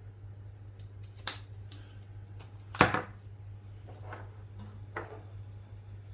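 Kitchen handling sounds of spice jars: a few light clicks and one sharp knock about three seconds in as a jar is set down or tapped on the worktop, over a steady low hum.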